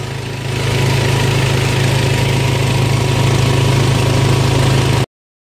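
A small engine running steadily on the pile-driving barge, a constant low hum with no hammer strikes, cutting off abruptly about five seconds in.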